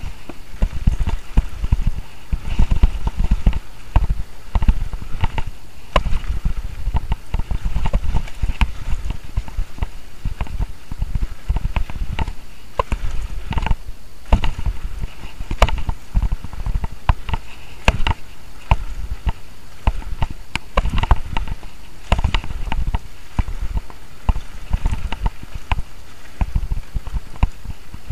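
Norco Team DH downhill mountain bike rattling and knocking over a rough dirt trail at speed, with many sharp clicks and clatters throughout. Wind rumbles on the microphone, rising and falling with the speed.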